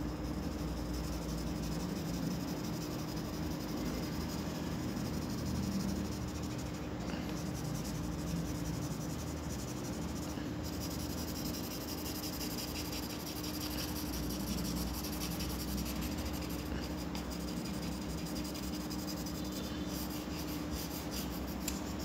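Graphite pencil scratching and rubbing on paper in shading strokes, with a run of quick short strokes near the end. A steady low hum runs underneath.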